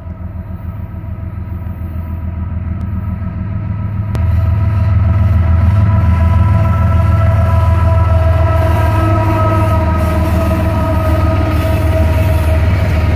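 Diesel freight locomotive horn held in one long, continuous chord as the Norfolk Southern train approaches and passes, its pitch dipping slightly as the lead unit goes by. Under it is a low rumble of diesel engines and wheels that grows louder about four seconds in.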